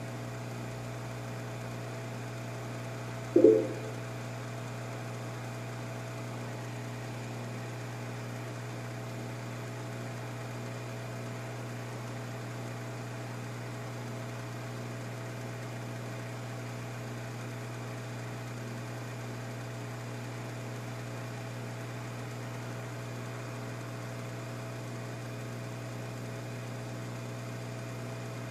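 Steady hum of a hot air rework station blowing hot air up onto a circuit board to reflow solder under a newly placed microphone. About three and a half seconds in there is one short, loud sound.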